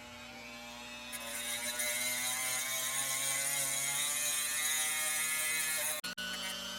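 Dremel rotary tool with a cutting wheel cutting through a piece of rough opal: a steady whine with a grinding rasp, getting louder about a second in as the wheel bites, and breaking off briefly about six seconds in.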